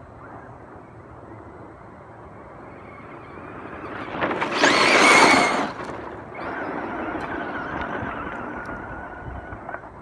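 Brushless-upgraded Traxxas Slash 2WD RC car running, with its motor whir and tyre noise. A loud rush of noise swells about four seconds in and falls away after about a second and a half, then a steady motor whine carries on.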